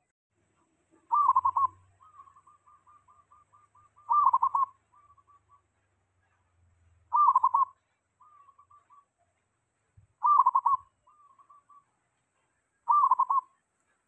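Zebra dove (perkutut) singing: five loud, short coos about three seconds apart, most of them trailed by a softer run of quick rippling notes.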